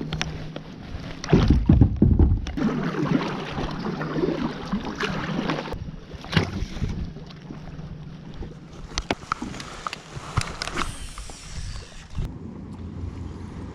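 Wind buffeting the microphone and water slapping against a fishing kayak's hull, with the strongest gust about a second and a half in. Scattered sharp clicks and knocks, and a steady low hum underneath.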